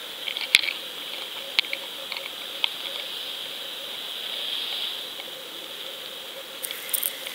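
Muffled underwater sound picked up through a submerged camera: a steady hiss with a faint hum, broken by a few sharp clicks.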